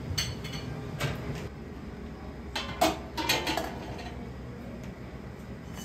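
Metal ladle clinking and clattering against an aluminium stockpot and bowl while broth is ladled out. There are a few sharp knocks, the loudest cluster about midway with brief metallic ringing, over a steady low kitchen hum.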